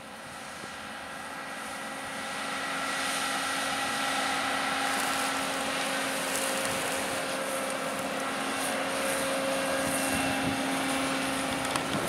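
JCB 536-60 Agri Super telehandler's diesel engine running as the machine drives along, growing louder over the first few seconds as it approaches and then holding an even note.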